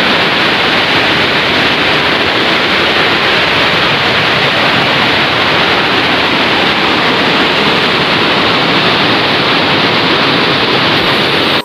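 Water pouring over the spillway of an old stone gravity dam, a loud, steady rush of falling water.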